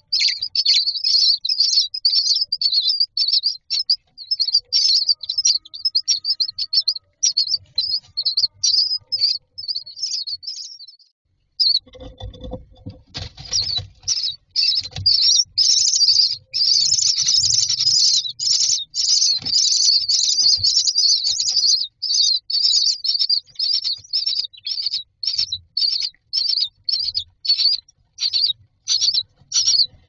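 Common myna nestlings giving rapid, high-pitched begging calls as an adult feeds them. The calling drops out briefly about eleven seconds in, a few low knocks follow, then the begging resumes at its loudest.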